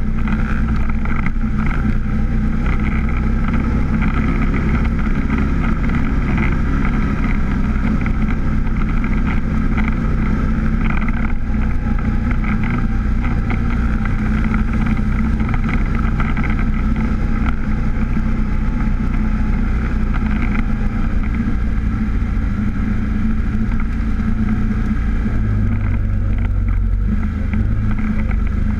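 A vehicle engine running steadily while under way, with some wind on the microphone.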